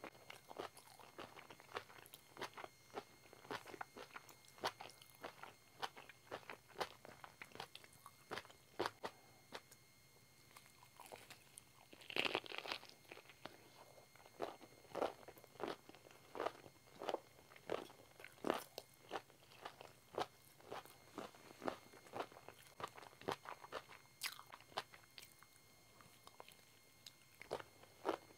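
Close-miked chewing of crisp black wood ear fungus: a string of sharp, short crunches about a second apart, with a louder crunch about twelve seconds in.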